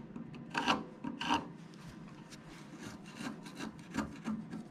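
Hands rubbing and handling a dogwood blank mounted on the lathe: irregular dry scraping rubs of skin on wood, with two louder strokes about a second in.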